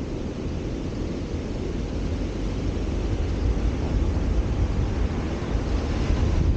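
Steady low wind rumble on the microphone of a roof-mounted camera on a moving car, mixed with road noise.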